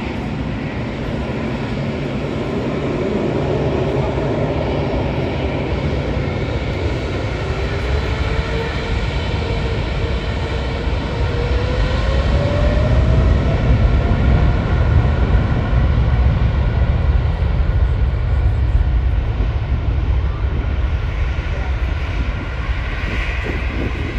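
Boeing 777's twin GE90 turbofans at takeoff power during the takeoff roll. A loud, deep rumble swells to its peak about halfway through, with an engine whine rising in pitch as the jet accelerates.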